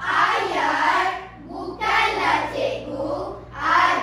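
A group of children's voices chanting in unison in a rhythmic choral-speaking performance (bicara berirama), in loud phrases that start about every two seconds.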